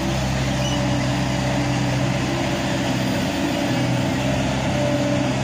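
A road roller's engine running steadily at an even speed.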